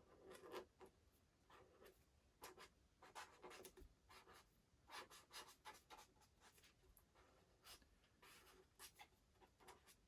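Faint scratching of a pen on paper in short, irregular strokes as the finished line work of a drawing is inked over a pencil sketch.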